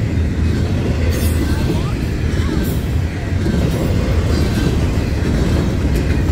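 Double-stack intermodal freight cars rolling past on steel wheels: a steady low rumble of wheels on rail, with a few brief sharp clicks.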